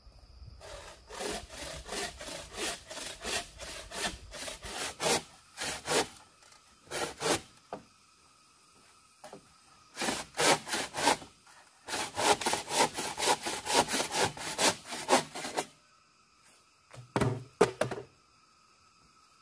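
Bow saw cutting through a bamboo pole in runs of quick back-and-forth strokes, about three a second, broken by short pauses. A few knocks near the end.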